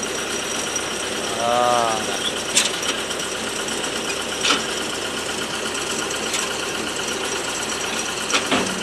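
Water-well drilling rig's engine running steadily, with a sharp metallic clank about every two seconds.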